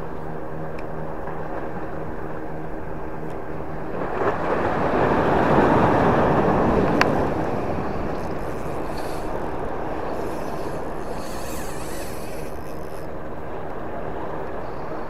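Steady outdoor rush of wind and sea at the water's edge, swelling for a few seconds in the middle, with one sharp click about seven seconds in. Faint background music fades out in the first few seconds.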